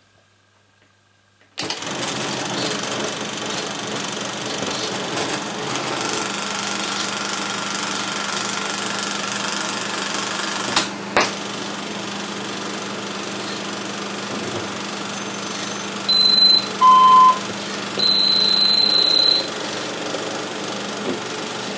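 Bell & Howell 8D 655 16mm film projector switched on about a second and a half in, its motor and film mechanism then running steadily. A couple of sharp clicks come about halfway through. Near the end, a few loud short beeping tones (high, then lower, then a longer high one) sound through its amplifier from the film's soundtrack.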